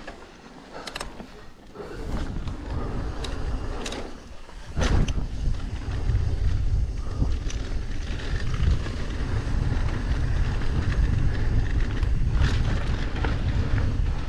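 Wind buffeting the microphone of a mountain bike's action camera and tyres rolling on a dry dirt trail as the bike descends at speed, with sharp knocks from the bike over bumps. Quieter for the first two seconds; after a sharp knock about five seconds in, the rush is louder and stays so.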